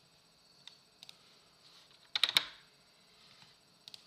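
Computer keyboard keys being pressed: a few light taps, then a quick run of keystrokes about two seconds in.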